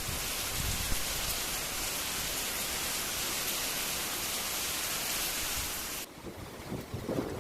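Steady, even hiss of heavy rain that cuts off abruptly about six seconds in, after which gusty wind rumbles on the microphone.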